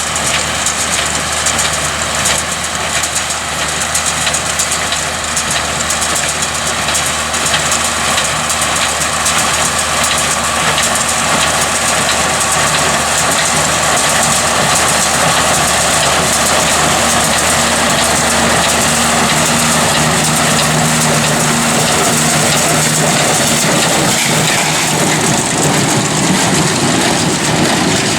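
Tractor engine running steadily while pulling a New Holland small square baler that is baling hay.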